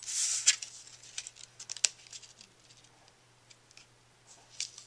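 Cardstock being handled: a short rustling slide of paper at the start, then scattered light ticks and taps as a cardstock strip is pressed down onto a card panel with double-sided tape.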